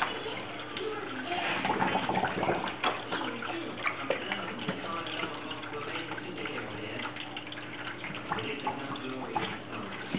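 Drinkwell 360 pet fountain running: streams of water trickling and splashing into the bowl over a faint steady pump hum, with many irregular small splashes and clicks.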